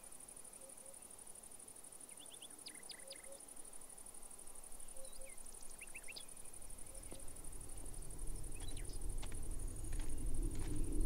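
Rural ambience of a steady high insect trill with a few short bird chirps. About two-thirds of the way through, a low sound swells in and keeps growing louder.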